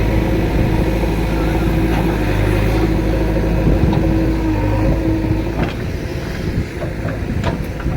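Diesel engine of a JCB backhoe loader running steadily under work, easing a little after about five seconds, with a few short knocks near the end.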